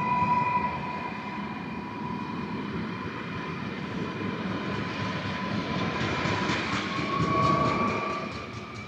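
Newag Impuls electric multiple unit passing close by at speed: steady rumble of wheels on rail with a steady electric whine from its traction equipment. The sound swells near the end as the rear of the train goes by, then begins to fade.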